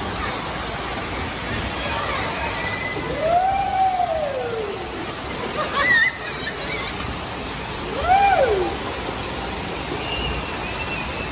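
Water running steadily down a small water slide and splashing into a shallow pool. A voice rises and falls in pitch twice, about three and a half and eight seconds in, with a short high squeal around six seconds.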